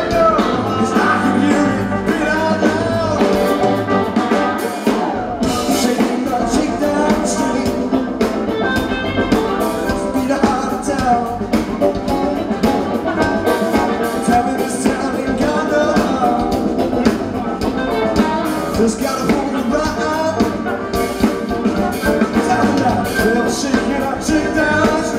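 Live rock band playing with electric guitars, bass guitar, drum kit and keyboards, heard amplified from among the audience in a club.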